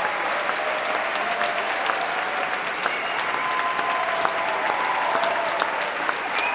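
Audience applauding steadily: a dense, even mass of hand claps.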